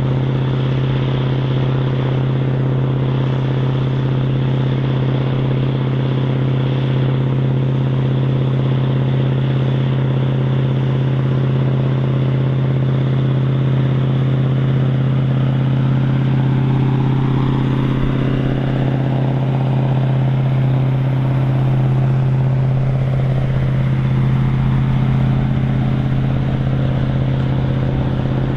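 Big articulated farm tractor's diesel engine running at steady revs. A fainter engine tone rises and falls about two-thirds of the way through.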